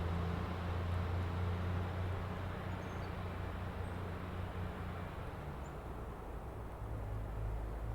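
SUV engine running as a low, steady hum with road noise, slowly fading.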